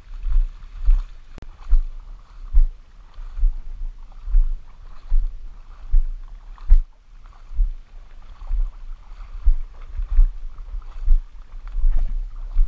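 Wading through shallow seawater: a low thud with a slosh of water roughly once a second, in an even walking rhythm.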